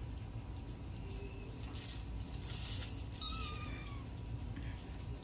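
Cat meowing: a faint short call about a second in, then one clearer meow that falls in pitch about three seconds in, with light rustling just before it.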